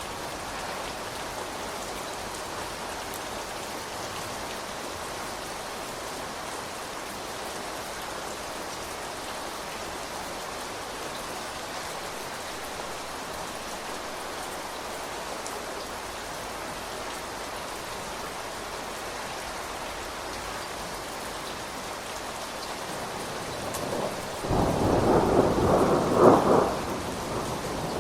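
Steady rain falling, then a little before the end a loud rumble of thunder lasting a few seconds.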